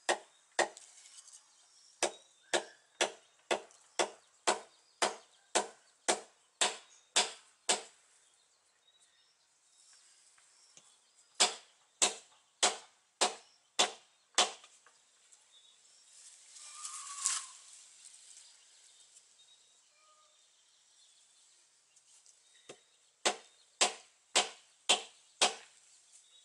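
Wooden mallet knocking on the top of a forked wooden stake, driving it into the ground. Sharp, even knocks about two a second come in three runs with pauses between them.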